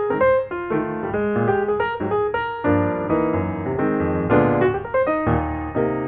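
Piano music: a run of short notes over stacked chords.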